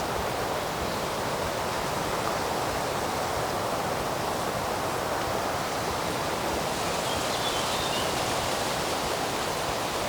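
Steady, even rushing noise of outdoor ambience.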